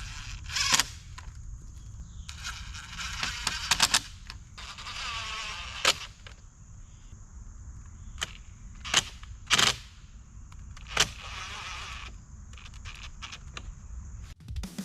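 Irregular sharp knocks and cracks, some in quick runs of three or four, with rustling and scraping between them: the sounds of handling and fitting material while building a small bridge.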